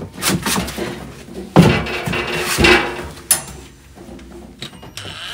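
Steel wood stove being shoved and set down on a fireproof board over a plank floor: knocks and scraping with a metallic clatter. The loudest knock comes about a second and a half in, followed by a couple of seconds of scraping before it goes quieter.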